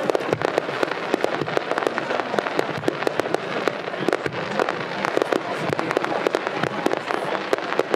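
Fireworks display going off in a rapid, irregular string of sharp bangs and crackles, many reports a second.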